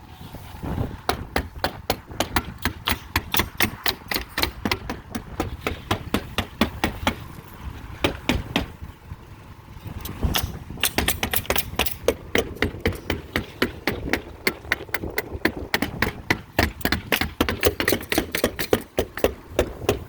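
Synthetic roofing underlayment being fastened to the roof deck with rapid, evenly spaced strikes, about four to five a second, in two long runs with a pause of about two seconds near the middle.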